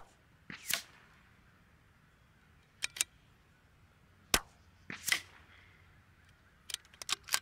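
Two sharp .22LR rifle shots, one at the start and one about four and a half seconds in, with quicker smaller clicks and short scraping sounds between and after them, fitting bolt-action rifles being cycled. A quick cluster of clicks comes near the end.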